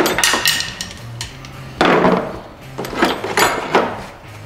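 Sharp metal knocks and clinks with short ringing as a MerCruiser Alpha stern drive is worked loose with hand tools: a pair at the start, a loud one about two seconds in, and three more in quick succession near the end.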